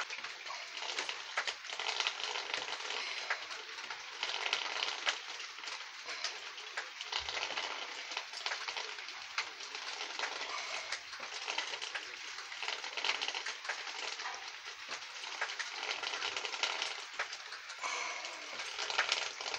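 A steady crackling hiss with many small ticks scattered through it.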